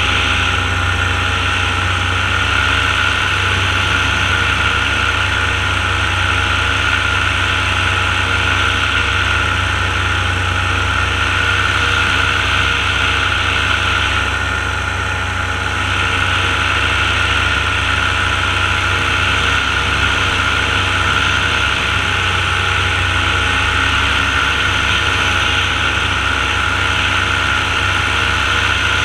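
Paramotor engine and propeller running steadily at cruise power in flight, a constant engine drone with a hissing top. The sound dips briefly about halfway through, then returns to the same steady level.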